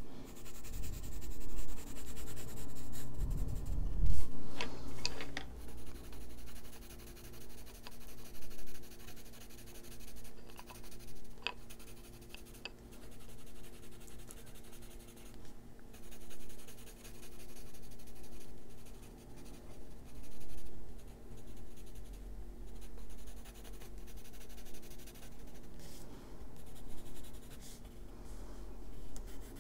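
Colored pencil scratching on paper in repeated back-and-forth strokes as colour is laid in, over a faint steady hum. There is a low bump about four seconds in.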